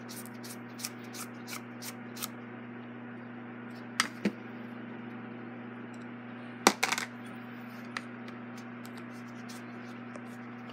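Small metallic clicks and clinks of a screwdriver and screws working on the gearbox of an Emerson 77648 fan motor, with two sharp clicks about four seconds in and a louder clatter of metal a little past halfway.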